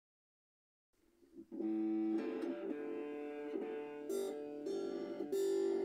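Stratocaster-style electric guitar coming in about a second and a half in with picked, ringing notes that change every half second or so, then a few brighter strums near the end.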